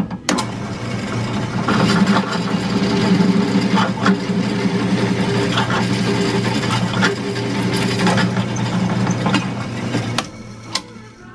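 Drill press boring a 3/8-inch hole through a metal bracket plate: the motor runs steadily under load with a dense grinding cutting noise. The sound drops off about ten seconds in.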